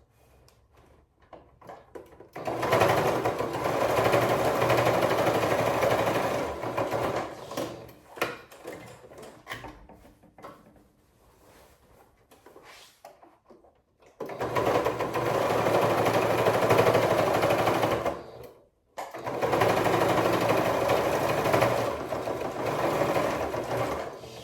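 Sewing machine stitching in three runs of several seconds each, stopping in between, with small handling clicks in the pauses.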